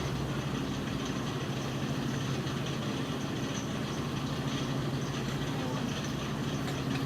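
Steady low machine hum with no breaks or changes.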